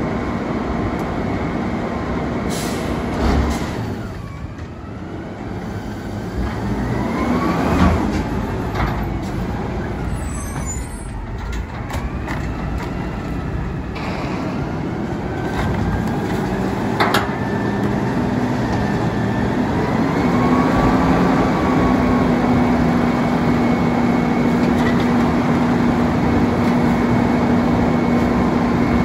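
Autocar ACX Heil Freedom front-loader garbage truck's natural-gas engine running, with its hum stepping up to a steadier, higher pitch about two-thirds of the way through. A few sharp knocks come as trash and bulky items are tossed into the front container.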